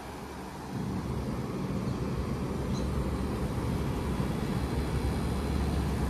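Mitsubishi Electric Mr. Slim mini-split outdoor unit (R410A heat pump) running with a steady low hum, growing a little louder about a second in.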